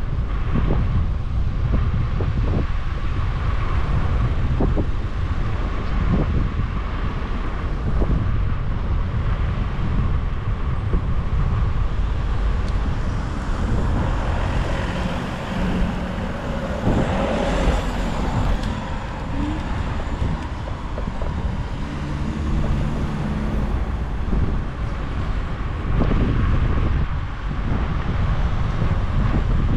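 Wind rushing over the microphone with steady road rumble and passing motor traffic; a louder vehicle goes by about halfway through.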